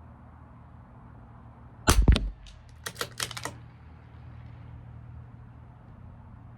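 A single .22 LR rimfire shot from a CZ 457 LRP bolt-action rifle about two seconds in. It is followed by a quick run of sharp metallic clicks as the bolt is worked to eject the case and chamber the next round.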